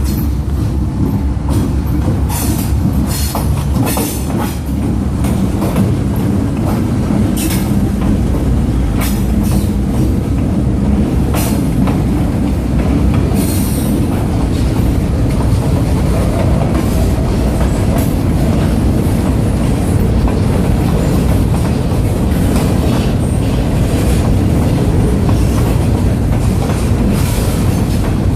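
A train rolling past: a loud, steady rumble of wheels on the rails, with irregular clacks running through it.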